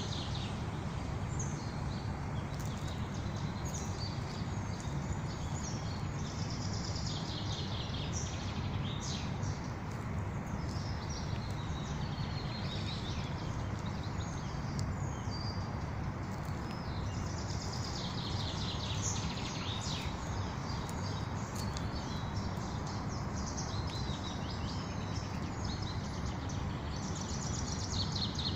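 Several songbirds singing in spring, with repeated chirps and trills coming in bursts and overlapping, over a steady low background rumble.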